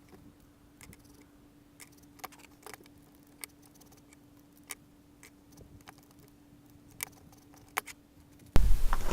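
Scattered light metallic clicks and taps of chainsaw parts being handled while the bar and chain are fitted back on, with a faint steady hum underneath. Just before the end it changes abruptly to a much louder, even noise.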